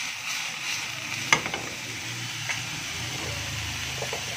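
Cubed chicken sizzling in oil in a non-stick frying pan as the pan is tossed, with one sharp knock about a second in as the pan comes back down on the gas stove grate, and a few lighter clicks later. A low hum sits under the sizzle after the knock.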